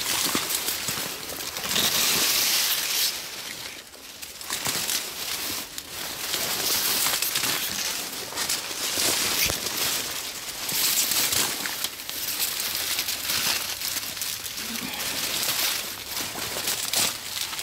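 Dry reed stalks brushing, crackling and snapping against a person pushing through them on foot, in swells of rustling a second or two long.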